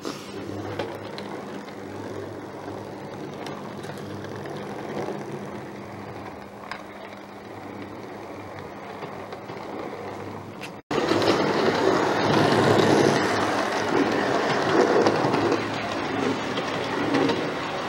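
Train running: a steady hum with a low drone for about the first ten seconds. Then a sudden cut to a louder rumbling train sound.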